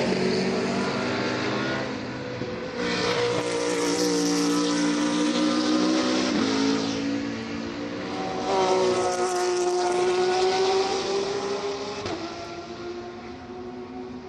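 GT3 race cars passing one after another at high revs, each engine note rising as it comes in and dropping as it goes by, with the last one fading away near the end.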